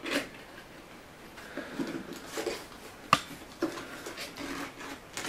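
Cardboard toy box and its packaging being opened by hand: soft rustling and scraping, with one sharp click about three seconds in.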